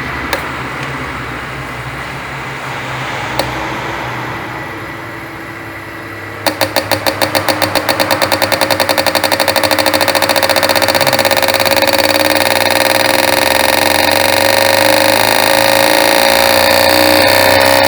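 Fuel-injector test bench flow-testing a Chevrolet Onix 1.4's four injectors after cleaning. It runs steadily at first; about six seconds in the injectors start firing, a rapid clicking that quickens into a continuous buzz.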